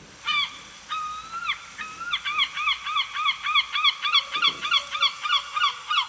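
Gull calling: a few drawn-out wailing notes, then a fast run of short, arched yelping notes, about four a second, that stops abruptly near the end.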